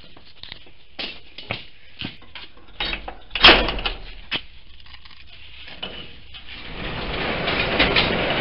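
Knocks and clicks of a handheld camera being moved about, with one loud knock about three and a half seconds in, then a rushing noise that grows louder from about six seconds on.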